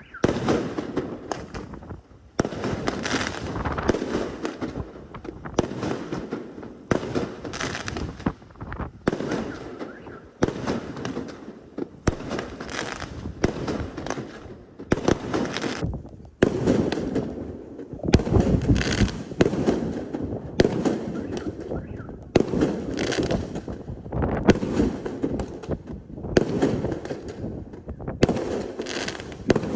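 Fireworks salute: shells bursting in quick succession, about one burst a second, with crackling between them.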